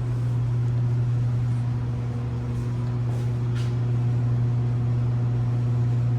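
Steady low mechanical hum with faint higher overtones, unchanging throughout, and a faint brief high-pitched sound about three and a half seconds in.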